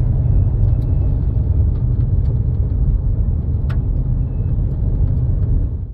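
Car driving on an unsealed gravel road, a steady low rumble of tyres and road noise heard from inside the cabin, with a few scattered sharp ticks. It cuts off suddenly near the end.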